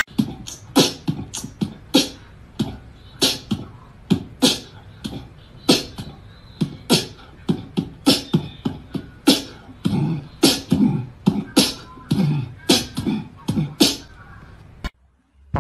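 A run of sharp, irregular taps and clicks, about two a second, with lower, fuller knocks mixed in for a few seconds near the end; the sound cuts off suddenly just before the end.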